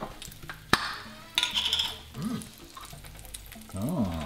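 A sharp click, then clinking and scraping of a spoon as jam is scooped from a glass jar into a small stainless saucepan, over a low sizzle of French toast frying in the pans.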